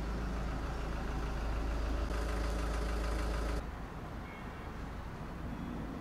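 Steady machine hum with a deep low rumble, like an engine or motor running. It drops off abruptly to a quieter background about three and a half seconds in.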